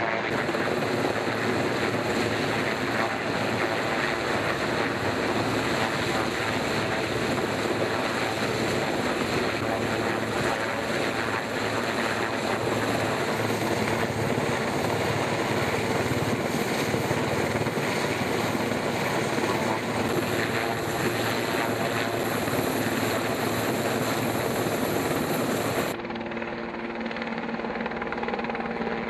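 Helicopter flying close: a steady, loud rotor and engine noise. Near the end it drops in level and turns duller.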